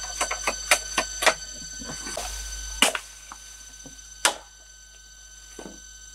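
A green bamboo pole being worked with a machete: a quick run of sharp knocks and clatter in the first second or so, then two single hard chops into the bamboo about a second and a half apart.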